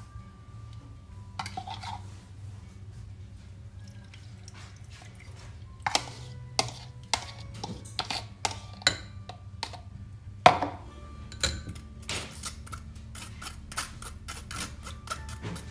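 Kitchen utensils and dishes clinking and knocking: scattered sharp knocks with short ringing, the loudest about ten seconds in, giving way to rapid clatter in the last few seconds, over a low steady hum.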